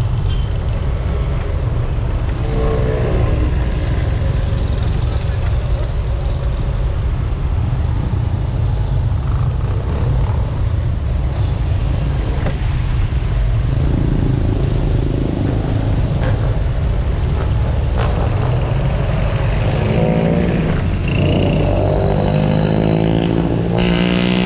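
Riding a motorcycle in traffic: steady engine and road noise with heavy wind buffeting on the microphone. Near the end an engine revs up, its pitch rising.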